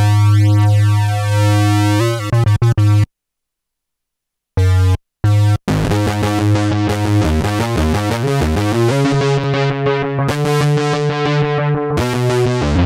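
Modal Electronics Cobalt5S synthesizer played on its keys: a held, bass-heavy note for about two seconds, then short choppy stabs broken by a second and a half of dead silence, then from about six seconds a fast run of short notes that each die away quickly.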